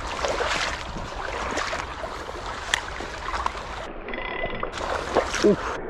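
Shallow stream water running over a gravel bed, a steady rushing wash, with wind rumbling on the microphone.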